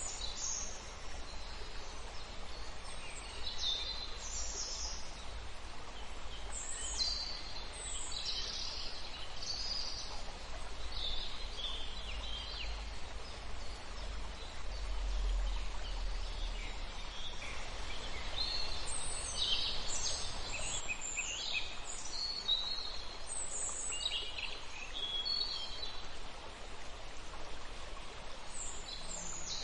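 Birds chirping off and on in short high calls, over a steady low rumble and hiss of background noise.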